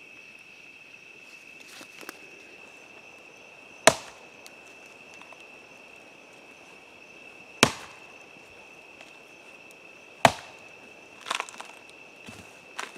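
A small wood campfire popping: three loud, sharp cracks a few seconds apart, then a couple of smaller ones near the end. Under them runs the steady high chirring of night insects.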